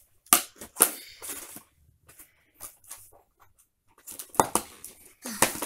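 Cardboard box and its packing being handled as a child pulls at the insert inside: a string of sharp knocks, scrapes and short rustles, bunched in the first second and a half and again near the end.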